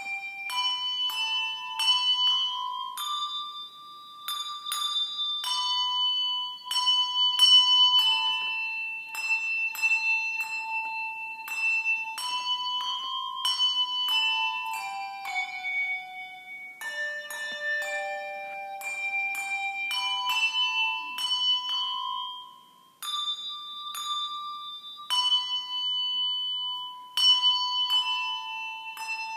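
Handbells rung by a small group of children, playing a slow tune one note at a time, each bell struck and left to ring on. The notes stop briefly about three quarters of the way through, then the tune resumes.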